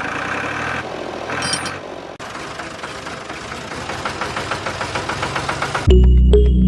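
Small electric motor of a homemade toy tractor thresher running with a fast, even rattle, breaking off briefly about two seconds in and then going on. Music comes in near the end.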